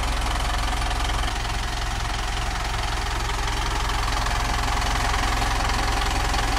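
2012 Mitsubishi Montero Sport's engine idling steadily.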